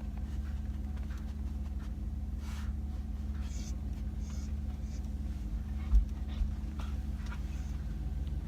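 Steady low drone of a car driving, heard from inside the cabin, with a single bump about six seconds in and a few faint high squeaks.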